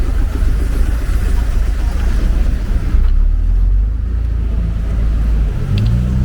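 Road traffic: motor vehicles passing close by with a heavy low rumble. Near the end a steady engine hum comes in.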